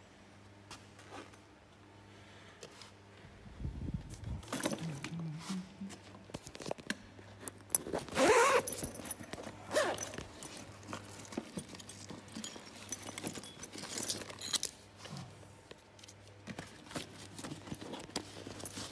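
A black bag being handled on a plastic chair: rustling, with a zip being pulled, loudest about eight seconds in. A steady low hum runs underneath.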